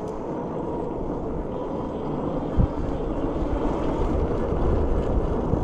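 Riding noise of an Ecotric 500 fat-tire electric bike under way: a steady low rumble with wind on the microphone, and one short thump about halfway through.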